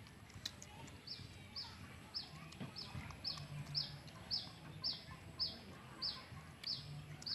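A bird calling: one short, high, downward-sliding note repeated steadily about twice a second, starting about a second in, over a faint low hum.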